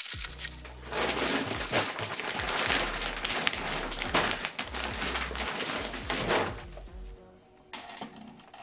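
Clear plastic shipping film crinkling as it is pulled off a large bag of dry dog food, with the stiff plastic bag rustling as it is handled; the crinkling dies down about six and a half seconds in.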